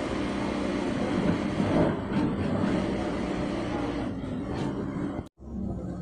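Steady machine hum and rumble of a garment workroom, with indistinct voices in the background; the sound drops out briefly near the end.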